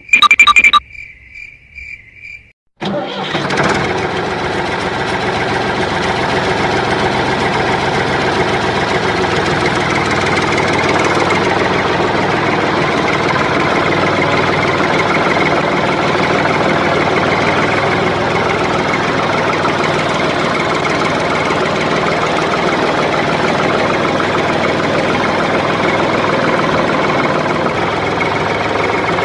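A short run of beeps, then about three seconds in a tractor engine starts and runs steadily.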